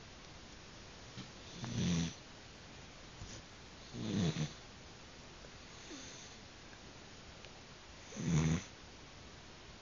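Sleeping Cavalier King Charles Spaniel snoring: three loud snores, each about half a second long and a few seconds apart, with a fainter one between the second and third.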